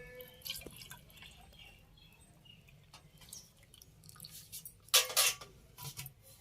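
Quiet clinks and knocks of vessels holding coconut oil being handled, with a louder clatter about five seconds in.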